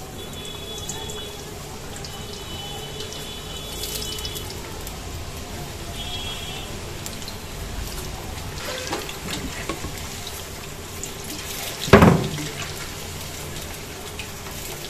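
Halved potatoes deep-frying in hot oil in a kadhai: a steady sizzle. A single loud knock about twelve seconds in stands out above it.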